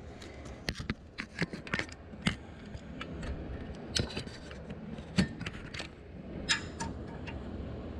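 Scattered sharp metallic clicks and clinks of a wrench working a cylinder head bolt as it is turned through a set angle, irregular and a few to the second in places.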